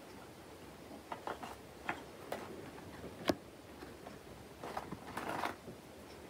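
Small wooden figures tapping and clicking as they are set down on a felt mat, a scatter of soft knocks with one sharper click about three seconds in. Near the end, a short rustle and a few knocks as a hand picks more figures out of a woven basket.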